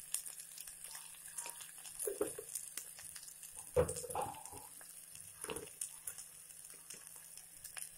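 Sliced onions and curry leaves frying in a little oil in a steel pot: a faint steady sizzle with scattered small crackles. A few short louder sounds break in, the loudest about four seconds in.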